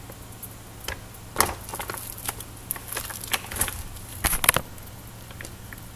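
Crinkling and crackling of a plastic frozen-food bag being handled, in scattered short crackles, loudest about four and a half seconds in.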